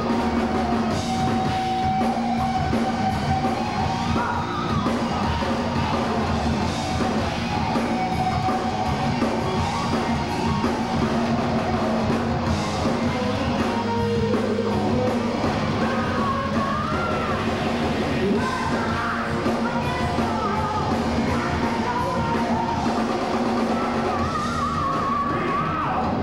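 Heavy metal band playing live: distorted electric guitar, bass and drum kit, with a singer's voice over the band.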